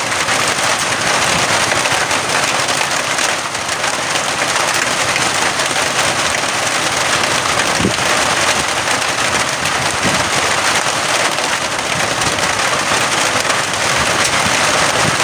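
Steady, loud rushing noise that does not let up, with most of its energy in the upper range and little low rumble.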